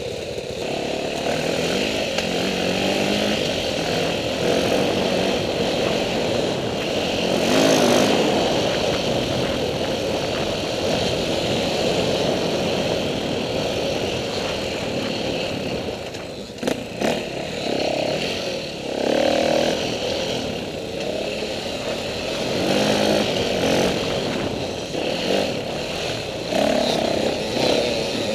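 Dirt bike engine running, its pitch rising and falling again and again as the throttle is opened and closed, heard from a helmet-mounted camera.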